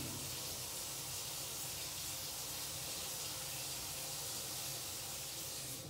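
Steady hiss from a lit gas stove with pots on the burners, with a faint low hum beneath.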